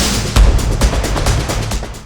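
Electronic background music with a heavy, driving beat, starting to fade out near the end.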